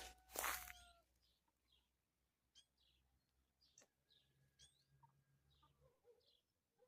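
Faint, short bird chirps spaced about a second apart, after a few loud sharp clicks in the first second.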